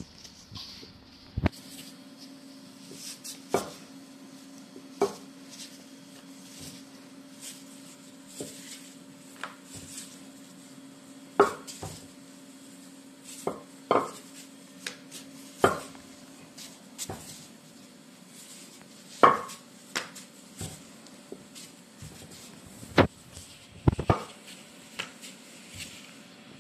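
Kitchen utensils and dishes clinking and knocking at irregular intervals as food is prepared, over a faint steady hum that fades out about two-thirds of the way through.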